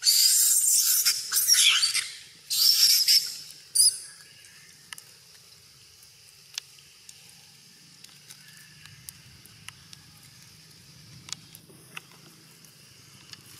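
High-pitched, wavering squeals from a long-tailed macaque in two bursts over the first four seconds, then only a faint background with a few small clicks.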